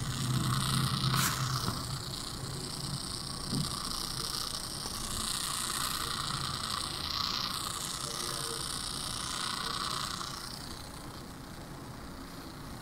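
Pipo Smart S1 putting out a steady hiss with a sharp pop about a second in and a fainter one a couple of seconds later: the popping fault of its audio output.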